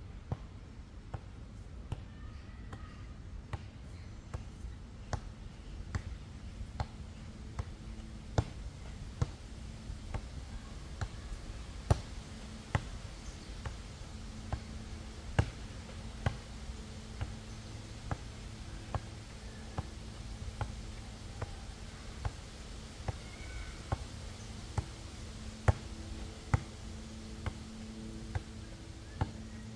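A series of sharp taps or clicks, about one a second and uneven in strength, over a faint low drone that comes and goes.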